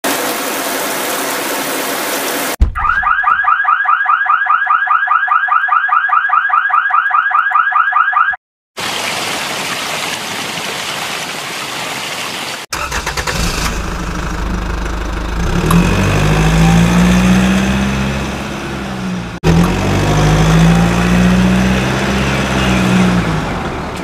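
Edited vehicle sound effects: a burst of hiss, then a rapid warbling alarm for about six seconds, then after a brief break an engine running that revs up and drops back twice.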